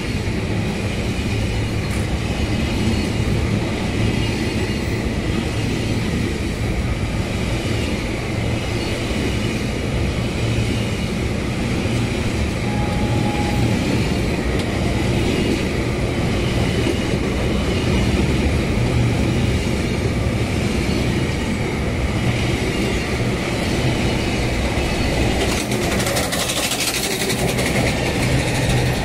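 Container freight train wagons rolling past close by: a steady, loud rumble and clatter of wheels on the rails. It turns harsher for a couple of seconds near the end as the last wagons and the brake van go by.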